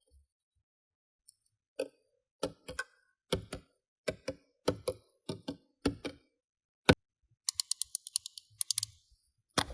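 Sticky slime being squeezed and folded by hand, giving sharp pops and clicks. After a quiet start the pops come about every half-second, often in pairs. Near the end they turn into a quick rapid run of crackling clicks.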